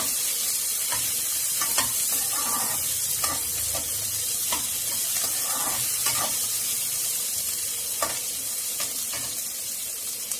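Chopped onion, tomato, garlic and dried red chillies sizzling in hot oil in a metal kadai as they are sautéed to soften, stirred with a perforated metal ladle that scrapes and taps against the pan about once a second.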